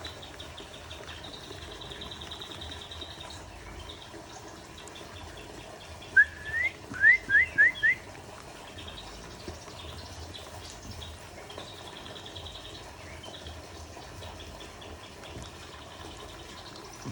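Songbird giving a run of five loud, quick upward-sliding whistles about six seconds in, over faint, rapid high trills that come and go.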